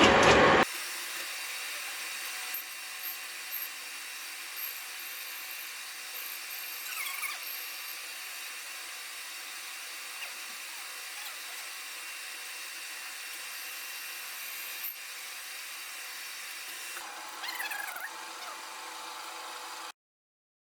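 CNC metal lathe running and cutting: a steady machine hum with a few short squealing glides from the cutting tool. A louder, noisier stretch at the very start breaks off abruptly, and the machining sound stops suddenly near the end.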